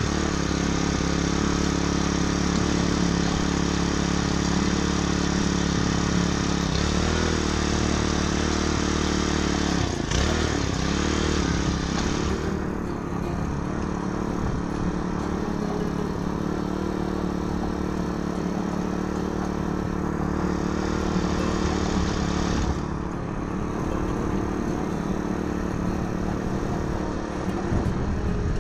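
Small petrol mini tiller's engine running steadily as its tines work the soil of a path. The engine note dips briefly twice, about seven and ten seconds in, as it takes load.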